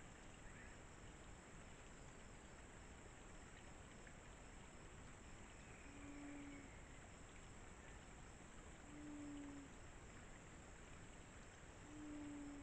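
Ruddy quail-dove giving three low, level coos, about three seconds apart, each a little under a second long.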